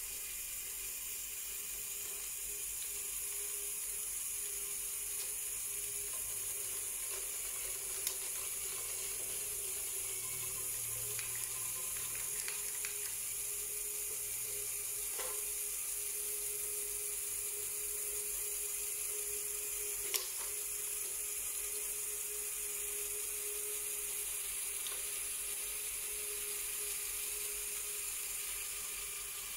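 Lego Technic great ball contraption module running: its electric motors and gear trains whir steadily, with a few sharp clicks from the mechanism and balls.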